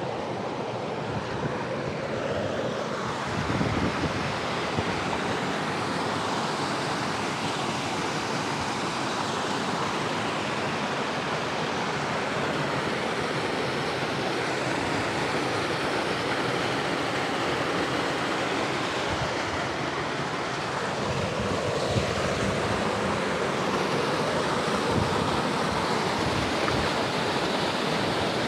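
Steady rushing water of a hill stream (burn), with a few low bumps around 3 seconds in and again near 21 seconds.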